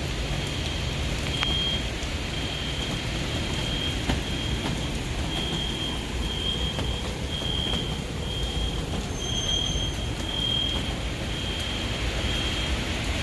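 Steady rumble of a car driving through heavy rain, heard from inside, with a thin high-pitched tone repeating about once a second.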